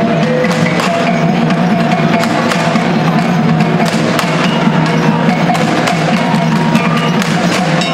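Music with dense, rapid wooden knocking percussion and some bell-like tones, cutting off suddenly at the end.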